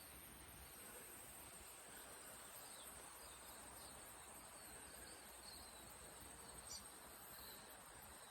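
Near silence: faint ambience with a steady high-pitched hiss and a scattering of faint, short high chirps.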